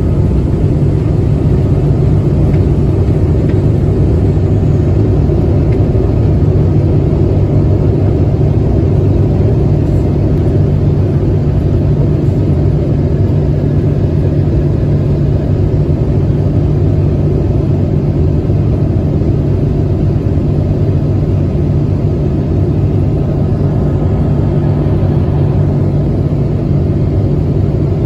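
Boeing 777-200 jet engines at takeoff thrust, heard from inside the passenger cabin as the airliner lifts off and climbs: a loud, steady, deep rumble.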